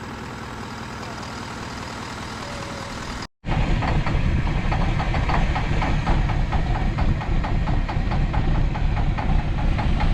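A quieter steady hum, then after an abrupt break about three seconds in, an engine idling loudly with a fast, even knock while it warms up.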